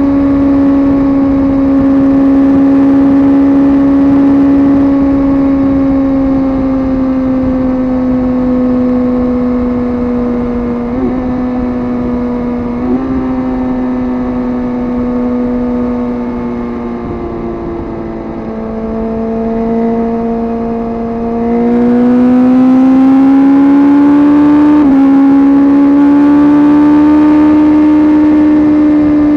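Suzuki GSX-R sportbike's inline-four engine running at steady high revs on the move, easing off and dropping in pitch and loudness through the middle, then pulling hard again with the pitch rising and a quick step near the end that sounds like a gear change. Two short clicks come about a third of the way in.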